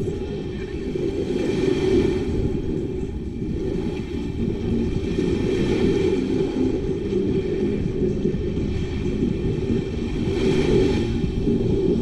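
Wind buffeting the microphone as a steady low rumble, with small waves washing up on the sand, their hiss swelling about every four seconds.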